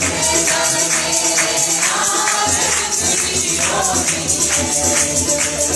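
Tambourine jingling in a steady rhythm as worship music, with a woman's voice coming through a microphone over it.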